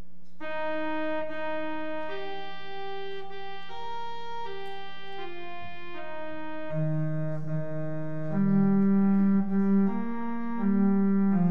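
Church organ playing a slow piece in held, sustained chords that start about half a second in. Lower bass notes join about seven seconds in, and the music gets louder from about eight seconds.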